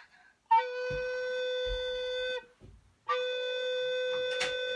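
Aulos 709BW alto recorder sounding B4, held as two long steady notes of about two seconds each with a short breath gap between them.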